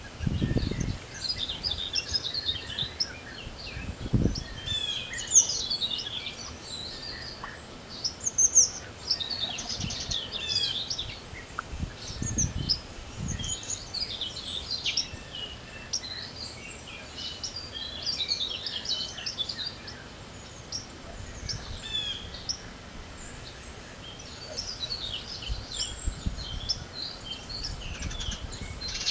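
Several songbirds singing and calling in overlapping phrases, a spring dawn chorus. Now and then a gust of wind rumbles low on the microphone.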